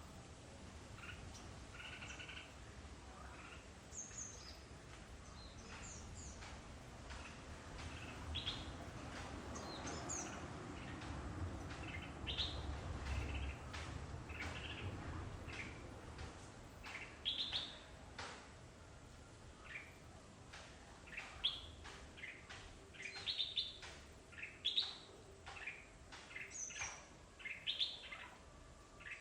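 Small birds chirping, with many short high calls that grow busier and louder in the second half. A low rumble in the background swells and fades around the middle.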